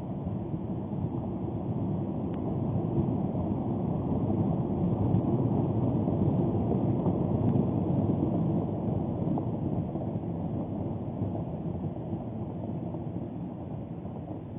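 Low rumble of a volcanic explosion at Popocatépetl, a deep noise with no distinct tones that swells to a peak about halfway through and then slowly dies away.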